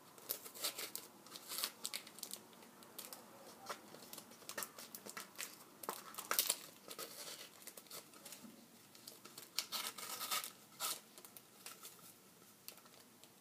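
Plastic wrapper label being peeled by hand off a Sprite soda bottle: irregular crinkling and tearing crackles as the film pulls away.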